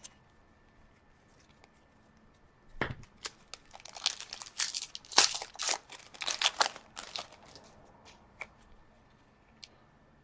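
The wrapper of a hockey card pack being torn open and crinkled by hand. It starts with a single knock about three seconds in, followed by several seconds of dense crackling rustle that fades out.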